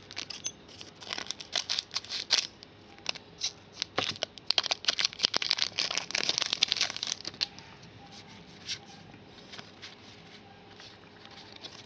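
Foil wrapper of a Donruss soccer trading-card pack crinkling and being torn open, loudest from about four to seven seconds in, then the cards inside being handled more quietly.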